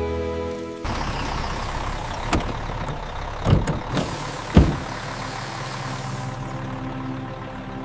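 Tractor engine sound effect running steadily, starting about a second in, with a few sharp knocks or clunks around the middle.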